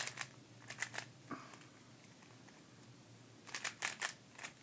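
GAN Air Master 3x3 speed cube being turned by hand: quick clusters of light plastic clicks as its layers snap round. The clicks come in short runs of a few turns, at the start, about a second in and more densely near the end, with a pause between.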